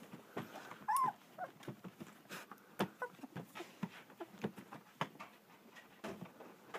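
Two-week-old German Shepherd puppy giving a short, high whimpering squeal about a second in and a shorter one just after. Many short scuffing clicks run alongside as the puppies crawl over the bedding.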